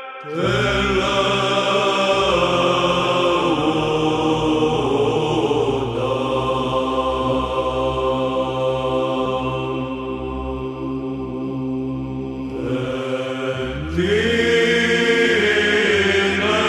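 Byzantine psaltic chant in Romanian: a group of chanters sings the Tone 1 (Glas 1) responses, a melody in long melismatic notes over a steady held low drone (ison). One phrase dies down and a new one begins about three seconds before the end.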